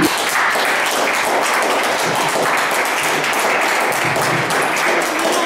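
Audience applauding: many hands clapping in a steady, dense stream of claps.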